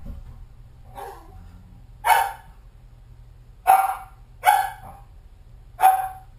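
A dog barking in single, spaced barks, five in all, the first one faint and the other four louder, about one to one and a half seconds apart.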